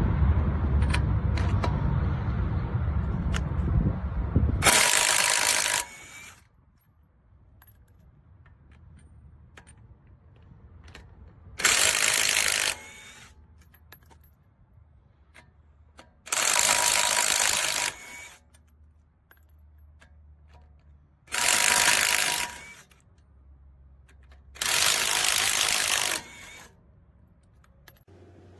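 A loud low rumble cuts off about five seconds in. Then an AOBEN 21V cordless impact wrench is run in five short bursts of about a second each, with pauses between them. The owner complains that the wrench is not working and would not remove a lug nut.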